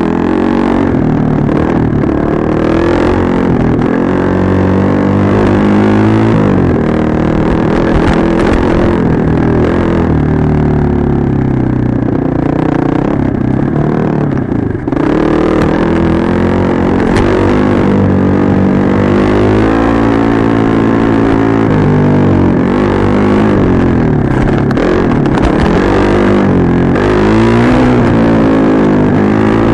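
Dirt bike engine running under way, its pitch rising and falling again and again as the throttle opens and closes through the gears, with a brief drop about halfway through.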